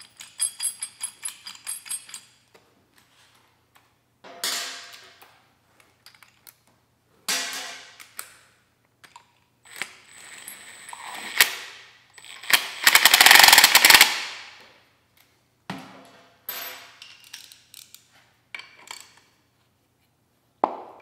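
Cordless impact driver hammering in short bursts, running a small three-jaw bearing puller's screw to pull a Hyper9 electric motor's factory end bell and support bearing off the shaft. The longest and loudest burst of rapid hammering comes about two-thirds of the way through. A run of quick clicks at the start comes while the puller screw is still turned by hand.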